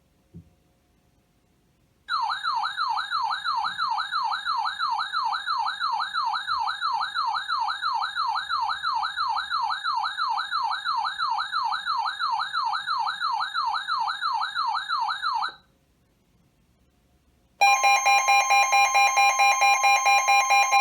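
Electronic warbling siren tone, sweeping up and down about three times a second for some thirteen seconds. After a short pause, a loud steady alarm tone made of several fixed pitches, pulsing in level, starts near the end: the alert tone that opens the next weather-radio warning.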